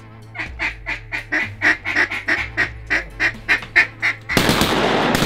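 A rapid series of honking waterfowl calls, about four a second, lasting several seconds. Near the end it is cut off by a sudden loud blast of noise.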